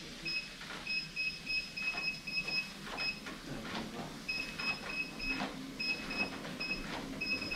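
Treadmill control panel beeping in quick runs of short, identical high beeps, over the steady tread of footsteps on the belt, about two a second.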